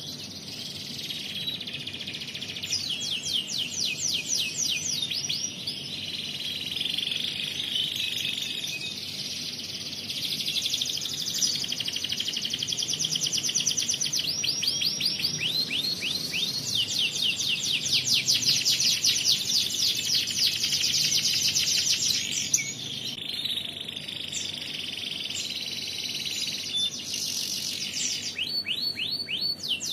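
Domestic canary in full, vigorous song ('gacor'): a continuous run of very fast trills and rattling phrases, the phrase changing every few seconds.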